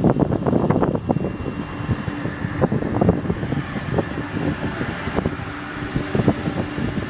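A vehicle engine running with a steady low hum, over wind buffeting and handling knocks on a phone microphone.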